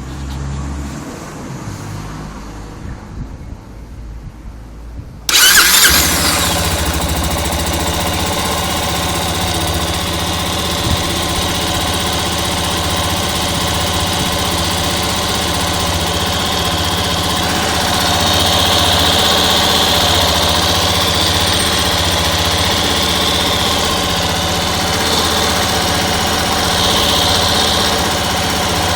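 Yamaha Ténéré 250 motorcycle's single-cylinder engine starting suddenly about five seconds in, then idling steadily; about two-thirds of the way in a higher-pitched sound joins the engine note.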